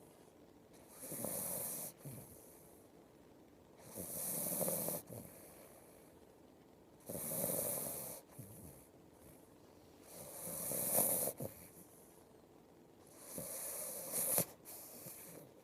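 Snoring: five slow snores about three seconds apart, each ending sharply.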